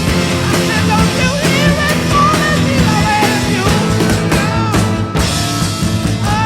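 Rock music with drums, bass and a wavering, bending lead line.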